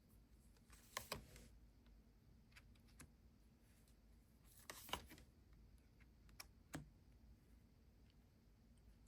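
Near silence with a few faint clicks and soft rustles from tarot cards being handled on a table: one about a second in, a louder pair around five seconds in, and a couple more near seven seconds.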